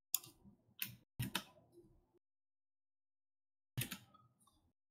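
A few faint, sharp clicks from working a computer's mouse and keyboard: several in the first second and a half, then one more near the end.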